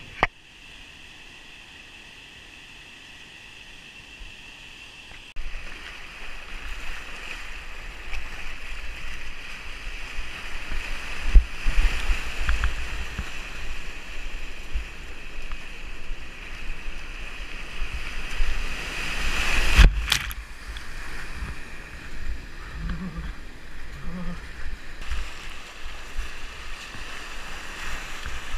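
Whitewater rapids rushing, heard close to the water from a kayak running them, with water buffeting and splashing against the camera. The sound is fainter for the first five seconds, then grows louder. There is a sharp tap at the very start and a loud splash about twenty seconds in.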